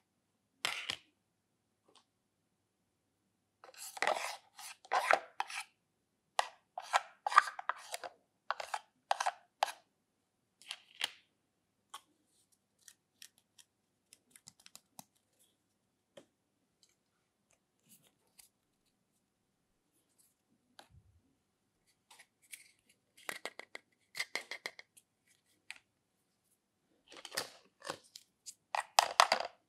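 Plastic toy utensils scraping and clacking against plastic toy pans, in several bursts of quick strokes with quiet gaps between.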